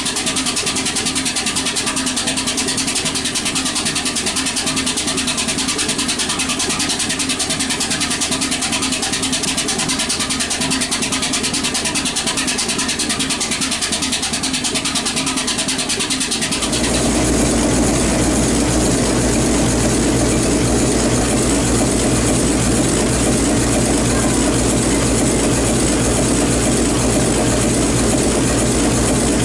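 A big old engine running steadily; about two-thirds of the way through the sound changes abruptly to a different big engine running, with a much deeper, heavier low rumble.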